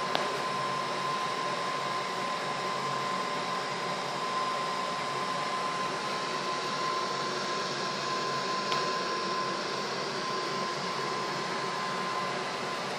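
Seven-nozzle brass gas burner running on HHO gas, hexane and compressed air, with a steady hiss of gas and air rushing through the jets and a thin steady high tone over it. Two faint clicks, one just after the start and one about nine seconds in.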